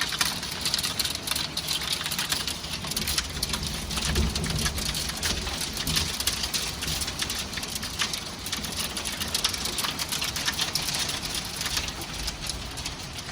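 Hailstorm: hailstones and heavy rain pelting down, a dense steady hiss full of sharp irregular ticks and clatters, with a brief low rumble about four seconds in.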